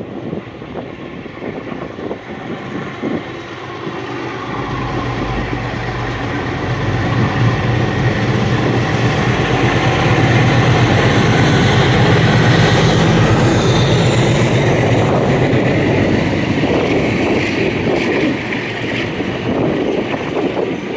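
Alco diesel locomotive (NSW 45 class no. 4501) throttling up as it pulls away. Its engine note builds over the first several seconds to a loud, steady drone as it passes close by, then eases. Near the end the carriages roll past with wheels clicking over the rail joints.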